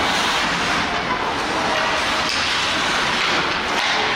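Ice hockey skates scraping and carving across the rink ice in a steady hiss, with a couple of faint sharp knocks from sticks or the puck.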